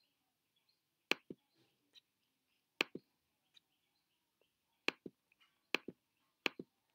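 Sharp clicks of a computer's pointer button, about ten of them spaced roughly a second apart, several coming in quick pairs like a press and release.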